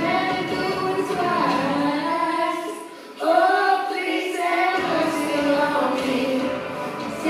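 A girl singing a song into a microphone, in long held notes. Her voice fades briefly just before three seconds in, then comes back louder on a new phrase.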